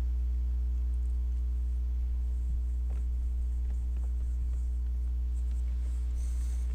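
Steady low electrical hum, with a few faint soft ticks about halfway through.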